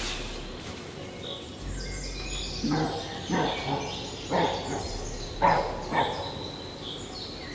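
Woodland birds chirping and singing, with a dog barking several times in the middle.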